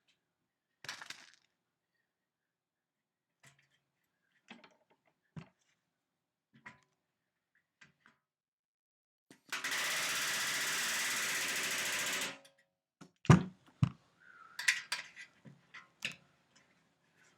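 Pneumatic rivet gun hammering in one steady burst of a few seconds, setting a rivet against a bucking bar. Soon after come two sharp metallic knocks, the loudest sounds, with scattered small clicks and taps around them.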